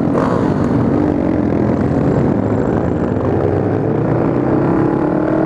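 Motorcycle engine running under way among a group of motorcycles, its pitch rising slowly in the second half as the bike accelerates, over a steady rush of wind noise.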